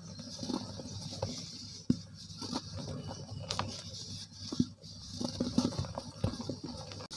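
Soft, dry cement lumps crumbled in the hands, the powder pattering as it sifts down, with irregular small crunches and crackles; one sharper snap about two seconds in.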